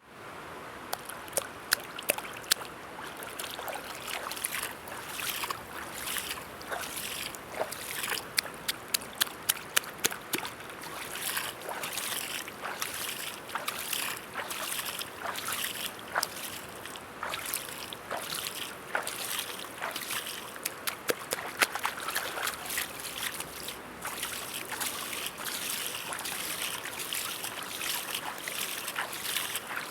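River water running over a steady rush, with many small sharp splashes and drips, some coming in quick clusters.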